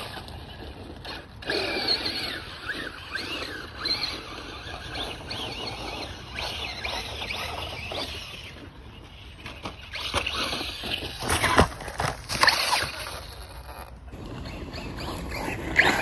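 FTX DR8 radio-controlled car's brushless electric motor whining, its pitch rising and falling with the throttle, with the tyres scrabbling over dirt and a few sharp knocks as the car hits bumps. Near the end it gets loud as the car passes close.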